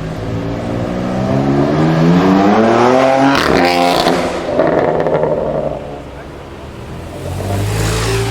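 A BMW M4 F82's twin-turbo inline-six with an Akrapovic exhaust accelerating hard. Its pitch climbs for about three seconds, then breaks off at a gear change with a short crackle, and the sound falls away. Near the end a lower engine note swells again.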